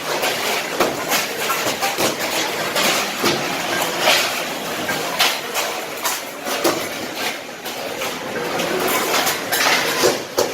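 Continuous metallic clatter of stainless-steel dinner plates and bowls being collected, stacked and handled in bulk, many sharp clanks overlapping in a dense racket.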